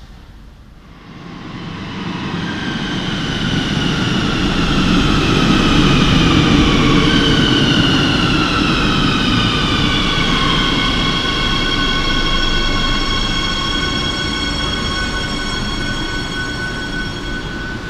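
Madrid Metro Serie 8000 electric train pulling in and braking to a stop. The rumble builds over the first two seconds, and the motor whine, several tones at once, falls steadily in pitch until about ten seconds in. Then it holds on a steady pitch as the train halts.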